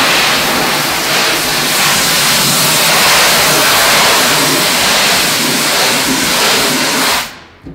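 Hose spray nozzle on its flat setting blasting water onto a screen-printing screen, washing out the emulsion after the screen has been burnt. A loud, steady hiss that starts suddenly and cuts off about seven seconds in.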